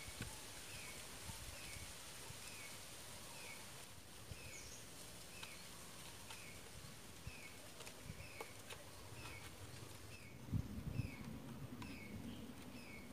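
A bird faintly repeating a short falling chirp about twice a second. Soft clicks and, about ten seconds in, a brief rustle and knocks come from hands packing food into a bamboo tube.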